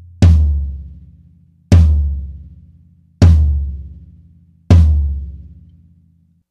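A low-pitched drum of a Sonor Designer kit struck hard four times, evenly about a second and a half apart, each hit ringing out and fading. Recorded through Audix DP7 drum microphones with no EQ.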